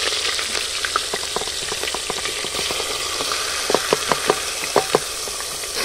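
Oil with cumin seeds sizzling and spitting in an aluminium pressure cooker as chopped onion, ginger and garlic are tipped in. There is a steady frying hiss, and a cluster of sharp clicks from about three and a half to five seconds in.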